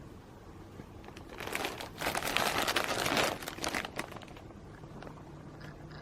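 Crinkling and rustling of material being handled, loudest from about one and a half to nearly four seconds in.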